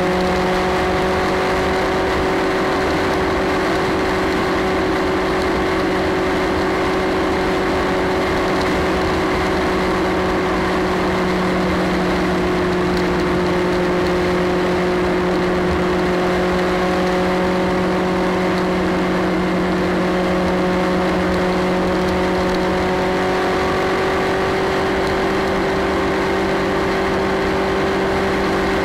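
Motorcycle engine running at a steady motorway cruising speed over wind and road noise. The engine note rises slightly about three quarters of the way through.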